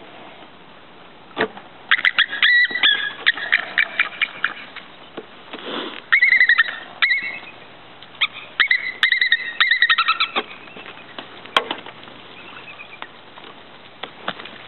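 Bald eagles calling: three bouts of quick, thin, high piping notes in rapid runs, with a couple of sharp knocks between.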